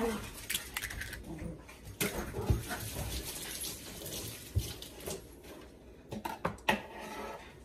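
An egg broken open over a bowl of milk mixture, then scattered light knocks and clicks of kitchen handling, the sharpest about two seconds in.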